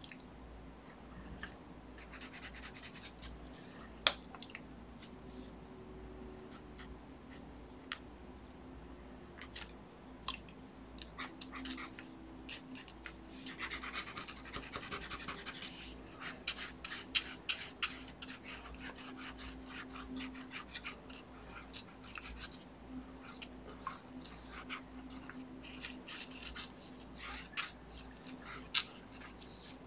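Ink pen scratching across a paper comic cover in quick hatching strokes. The strokes come in bursts, thickest about 13 to 16 seconds in and again from about 17 to 21 seconds.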